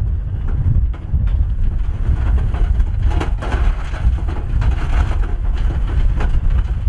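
Rocks and dirt sliding off a dump truck's raised bed and clattering onto a pile, over the low sound of a heavy diesel engine running, with wind buffeting the microphone.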